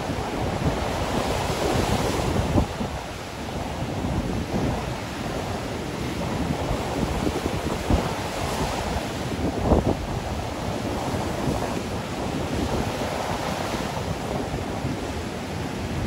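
Surf from a choppy sea breaking and washing up a sandy beach, a steady rush that swells and fades as the waves come in, with wind buffeting the microphone.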